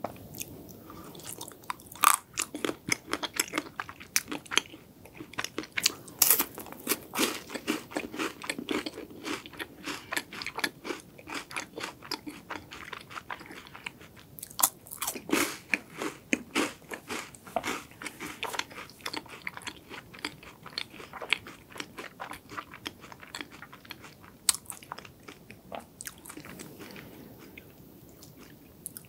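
Crisp crunching and chewing of a chocolate-coated Loacker wafer bar being bitten and eaten, close to the microphone. Dense sharp crunches start about two seconds in and thin out near the end.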